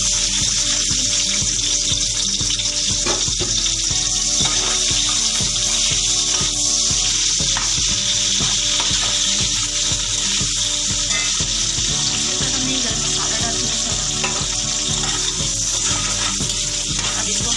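Sliced onions sizzling as they fry in hot ghee in a pot: a loud, steady hiss.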